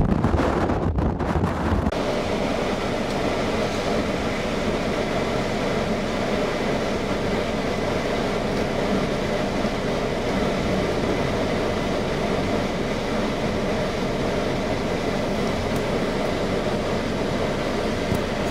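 Wind gusting across the microphone for about two seconds, then a steady, even rushing noise of a car cabin in a dust storm.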